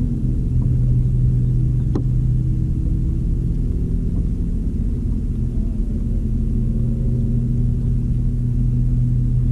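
A small motor humming steadily over a low rumble, its pitch gliding briefly near the start, with a single sharp click about two seconds in.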